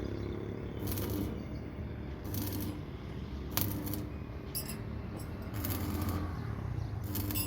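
Electric arc welding: the arc crackles and sizzles in a series of short bursts over a steady low hum.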